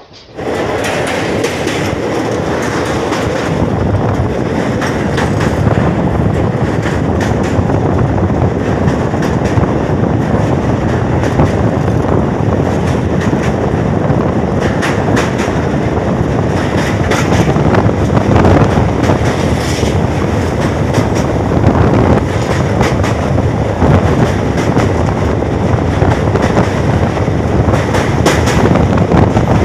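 Express passenger train running at speed, its coach wheels clacking over the rails, heard loud from an open coach door. It cuts in suddenly about half a second in.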